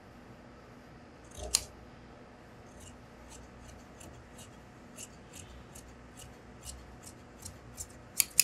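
Large tailor's shears cutting through suit trouser fabric: one sharp snap, then a steady run of short snips, about three a second, loudest near the end.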